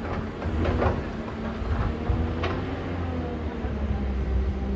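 Caterpillar 312B excavator's diesel engine running steadily, with a few sharp metallic clanks, the loudest about two and a half seconds in.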